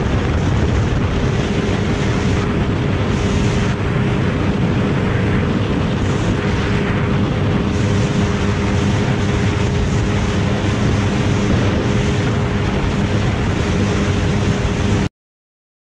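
Motorcycle engines running at a steady cruising speed, with heavy wind rush on the microphone of a bike-mounted camera. The sound cuts off suddenly near the end.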